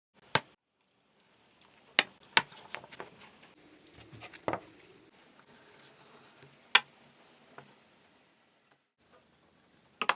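Woodworking bench handling: about five sharp knocks or clicks, irregularly spaced, with a duller thud a little before halfway and low scraping and rustling in between.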